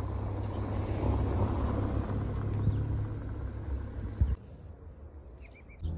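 A car passing close by on a paved road, its tyre and engine noise swelling and then easing over a heavy low rumble. The sound cuts off abruptly about four seconds in, leaving faint bird chirps.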